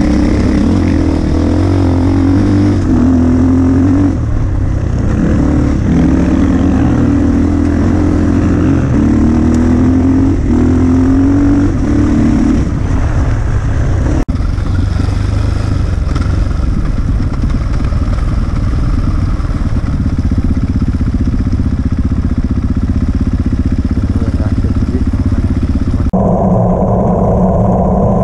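Enduro motorcycle engine under way on a dirt track. For the first dozen seconds the pitch climbs and drops back again and again, then it runs steadier, and the sound changes abruptly near the end.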